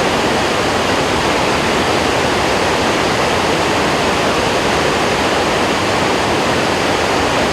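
Victoria Falls: a steady, loud rush of falling water.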